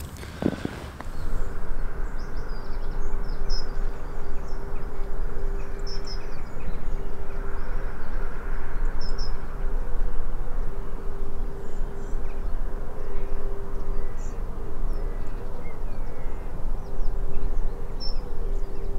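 Birds chirping in the early morning, short high calls scattered throughout, over a loud steady rush of outdoor background noise with a faint low hum.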